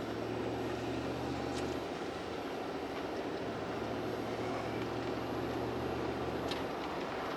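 A 2009 Chevrolet Tahoe's 5.3-litre V8 running steadily while the truck cruises, heard from inside the cabin as a low engine drone with even tyre and road noise.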